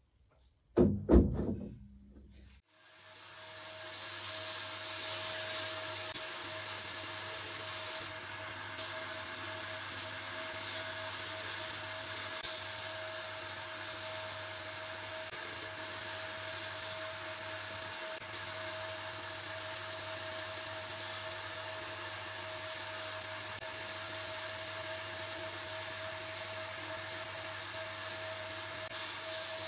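A short burst of loud knocks about a second in, then a sandblasting cabinet's blast gun running: a steady hiss of compressed air and abrasive with a constant whine and low hum, as the weathered wood of a spirit level is sandblasted.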